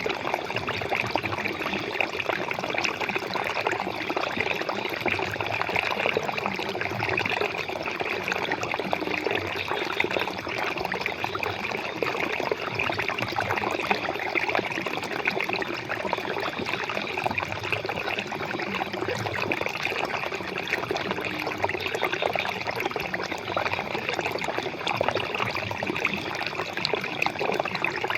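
Flowing water running steadily, with no breaks or changes.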